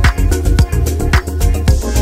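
Background music with a steady dance beat, drum hits about two a second over a heavy bass; a falling swish sweeps in near the end.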